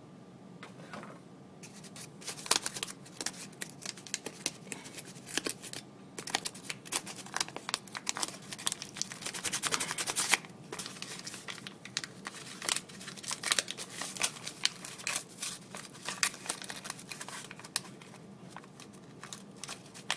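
A sheet-metal surplus ammunition tin being cut open with its lever-type can opener: a long series of sharp clicks and metallic crunches with short pauses, thickest around the middle.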